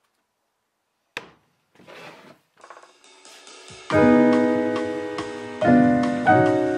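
A single sharp knock of a wooden board set down about a second in, followed by quieter scraping of wood. About four seconds in, background music of sustained piano-like keyboard chords comes in loudly, the chord changing every second or so.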